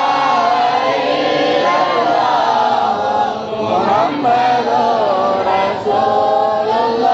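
A group of men chanting a devotional recitation together in unison, the melody rising and falling, with short breaks between phrases.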